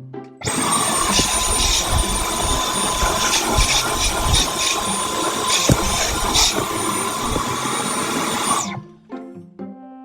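Dyson V12 Detect Slim cordless stick vacuum running for about eight seconds: a rush of air with a steady high motor whine, switched on about half a second in and cut off suddenly near the end, with a couple of knocks from the cleaner head.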